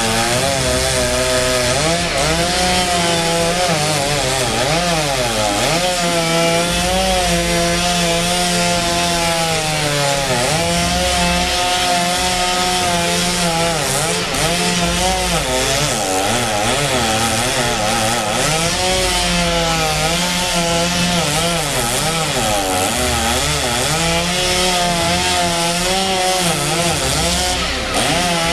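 Chainsaw cutting through wood, its engine pitch sagging under load and climbing back again and again.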